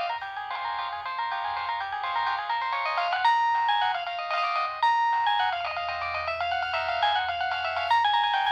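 A preloaded ringtone playing on a Nokia 6015i mobile phone: a quick, busy melody of stepped notes, several sounding at once, thin and tinny with no bass.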